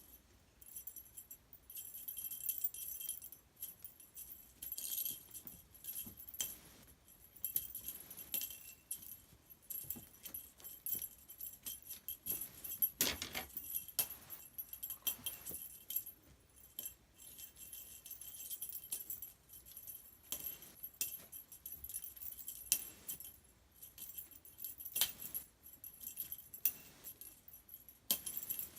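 Small jingle bell on a cat teaser toy jingling irregularly, on and off, as the toy is shaken, with a louder knock about 13 seconds in.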